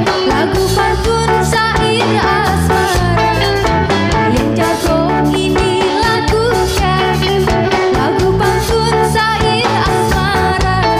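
A live band playing a song: a woman singing lead over electric guitars and drums.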